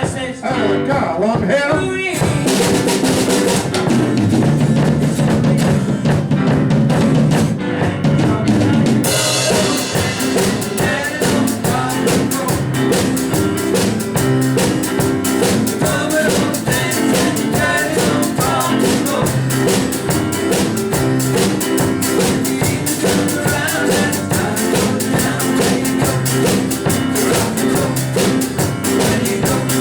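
Small rock and roll band playing live: drum kit driving a steady beat with snare and bass drum, under bass guitar, piano and electric guitar. About nine seconds in, the cymbals come in and stay up.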